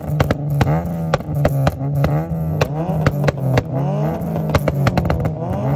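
Modified Honda Civic's engine revved again and again through an aftermarket quad-tip exhaust: each rev rises in pitch over a steady idle note, with sharp cracks in between.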